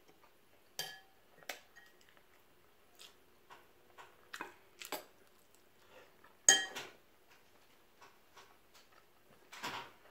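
Crab and crawfish shells being handled and cracked by hand over a food container while eating, making a scattered series of short clicks and cracks. The loudest is a sharp, briefly ringing clink about six and a half seconds in.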